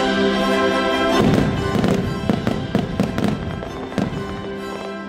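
Fireworks going off in a quick run of bangs and crackles, starting about a second in and lasting about three seconds, over the show's music, which plays throughout.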